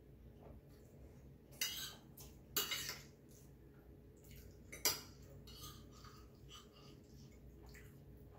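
Metal fork and spoon clinking and scraping on a ceramic plate as pasta is twirled, with three louder scrapes and clinks, the sharpest about five seconds in, among small clicks.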